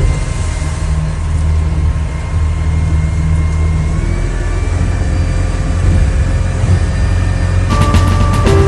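A heavy engine runs with a steady low drone. Music comes in near the end.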